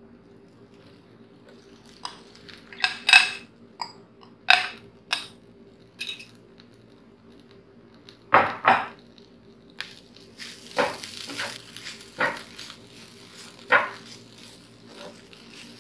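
A steel spoon scraping cooked shredded beef out of a glass bowl into a nonstick frying pan, with sharp clinks of metal on glass and pan. From about two-thirds in, a wooden spatula stirs the beef into the frying onions, with a light sizzle and repeated scraping strokes.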